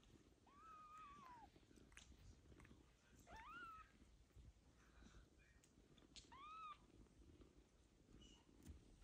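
Newborn kittens mewing faintly while nursing: three short, high, thin mews, each rising and falling in pitch, spread a few seconds apart, over faint rustling of the litter.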